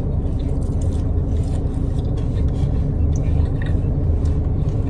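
Wet chewing and small mouth and food sounds from someone eating, scattered soft clicks over a steady low rumble.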